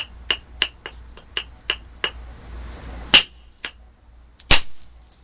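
Moose-antler billet tapping lightly on a piece of Texas stone, about three ticks a second, then a sharp crack about three seconds in and a heavier, louder strike about a second and a half later that breaks off an overshot flake, which breaks up.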